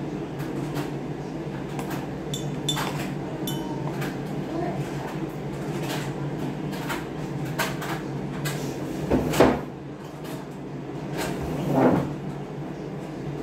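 Household kitchen clatter: scattered clicks and small knocks over a steady low hum, with two louder thumps about nine and twelve seconds in.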